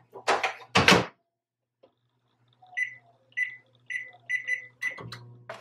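Microwave oven being loaded and set: a couple of clunks as the door is opened, the dish set inside and the door shut, then about six short keypad beeps as the cooking time is entered, and a low hum near the end as the microwave starts.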